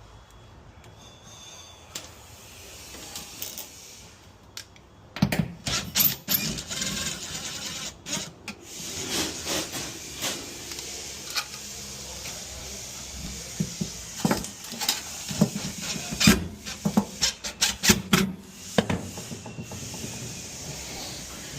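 Hand work with tools and small parts: irregular clicks, knocks and scraping, starting about five seconds in and going on, with short pauses, almost to the end.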